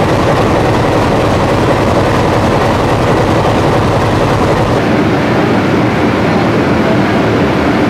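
Diesel engines of KTM YDM4 diesel-electric locomotives running at a standstill, a loud, steady rumble. The sound echoes off the walls and roof of the enclosed underground platform.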